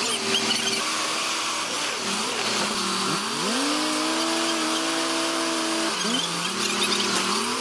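Bulldozer diesel engines running under load: one revs up about three seconds in, holds high revs, and drops back about three seconds later, over a steady noisy clatter.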